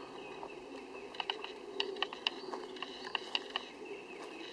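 About a dozen irregular sharp clicks and ticks over a faint steady background, from shrub twigs and leaves brushing against the handheld camcorder as it is pushed through the bushes.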